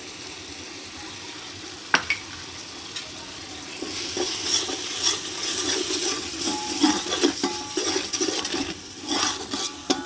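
Spices frying with a steady sizzle in hot oil in an aluminium cooking pot, with a single sharp clink about two seconds in. From about four seconds on, a metal spoon stirs and scrapes the masala around the pot, with irregular scrapes and clinks over the sizzle.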